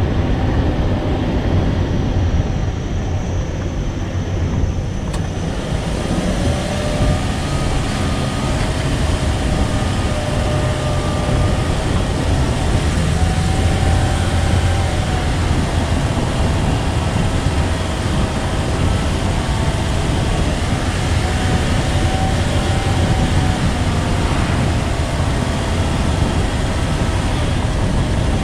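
Motor vehicle driving on a road: steady engine and road noise, the engine's pitch drifting slowly up and down.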